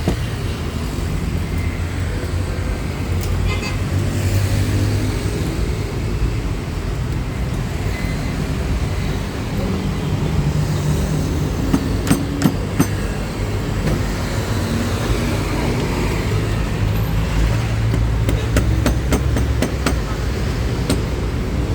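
Steady low rumble of background noise like road traffic, with a few sharp clicks about halfway and a quick run of clicks near the end.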